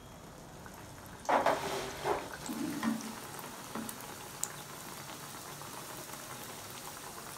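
Mughlai paratha frying in hot oil in a pan: a steady sizzle and bubbling, louder and more uneven for a couple of seconds about a second in, then settling to an even hiss with a light tick of the spoon.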